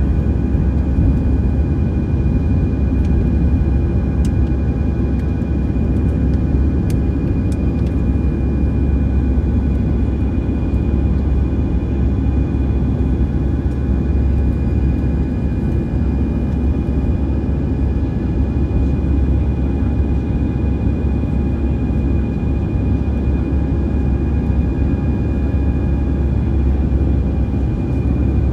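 Cabin noise of an Airbus A319 heard from a window seat beside the wing, with its CFM56 turbofan engines at climb thrust: a steady deep rumble with a few steady whining tones over it.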